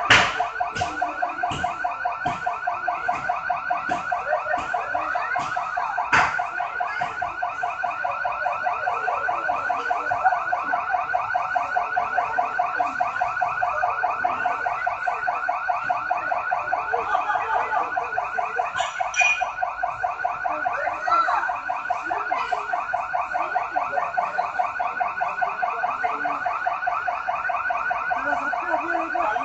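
Gold shop's security alarm ringing continuously in a rapid, even pulse. A few sharp bangs cut through it in the first two seconds, and another about six seconds in.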